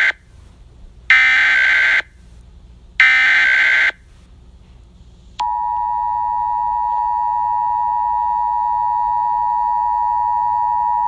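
Emergency Alert System tones: the last moment of one SAME header data burst, then two more warbling digital bursts about a second each with short gaps between them. About five and a half seconds in, the steady two-tone EAS attention signal (853 and 960 Hz) begins and holds, announcing an emergency broadcast.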